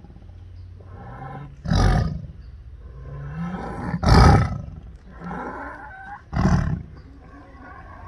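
Tiger roaring in three loud bursts about two seconds apart, with labored, pitched in-breaths between them: the trouble breathing in that a tiger has when building up to a roar.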